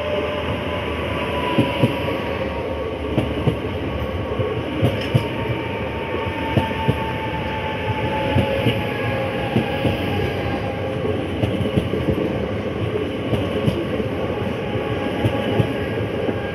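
Electric multiple unit rolling slowly past, close by: a steady rumble with a motor whine that slowly falls in pitch, and the wheels knocking in close pairs over rail joints about every one to one and a half seconds.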